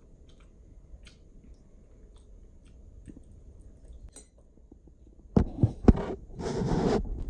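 Two sharp clinks of tableware against dishes about five and a half seconds in, followed by a brief scrape as a metal fork spears apple slices on a small ceramic plate. Before that there are only a few faint light clicks.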